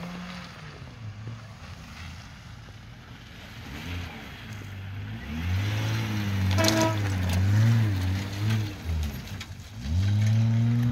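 Mitsubishi Pajero SUV's engine revving up and down as it drives a muddy off-road track. It gets loudest as it passes close by about halfway through, eases off briefly, then revs hard again near the end.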